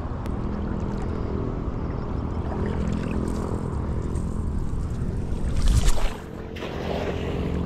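A boat's motor running steadily at low speed. About six seconds in, a louder rush rises and cuts off suddenly as a weighted cast net is swung and thrown.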